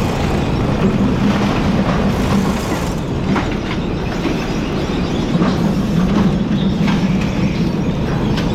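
Potato grading and bagging line machinery running: a loud, steady mechanical rattle over a low hum, with a few scattered knocks.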